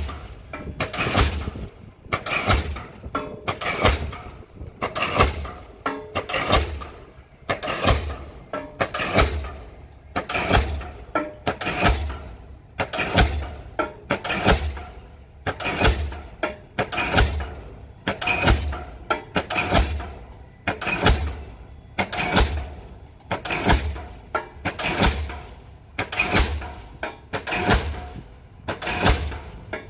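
Diesel pile hammer driving a pile: a steady run of heavy blows, about one a second, each a sharp crack over a deep thud.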